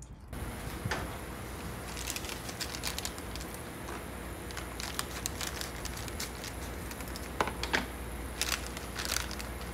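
Scattered crinkling and clicking handling noises, irregular and loudest a little past the middle, over a steady background hiss.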